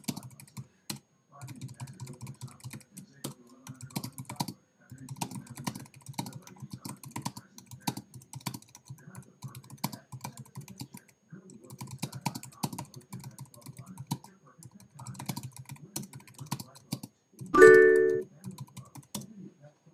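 Typing on a computer keyboard: runs of quick keystrokes broken by short pauses. Near the end comes one short, loud chime-like tone.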